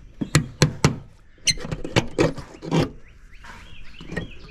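A run of irregular sharp knocks and clatter: four in quick succession in the first second, then more spaced out through the rest.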